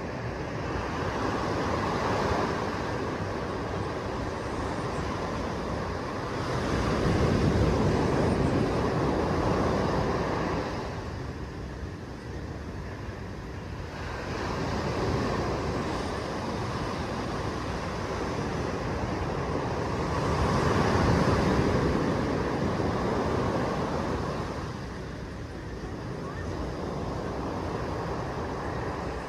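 Small waves breaking and washing up a sandy beach: a steady surf rush that swells and eases in slow surges, loudest about a quarter of the way in and again about two-thirds of the way through.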